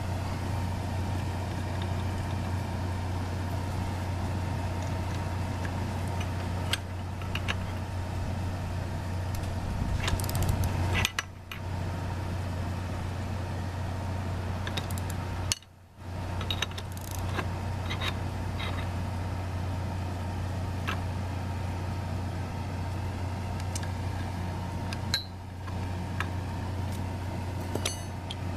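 Steady low machine hum, with scattered sharp metal clicks and clinks from wrenching a homemade crank puller on a mountain bike crank arm.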